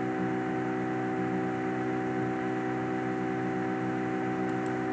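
Steady electrical hum made of several fixed tones at an even level, with two faint ticks near the end.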